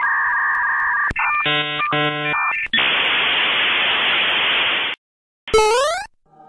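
A string of electronic sound effects: steady beeping tones, a click about a second in, then a choppy buzzing tone. After that come about two seconds of static hiss that cut off suddenly, and after a short gap a quick rising electronic zap.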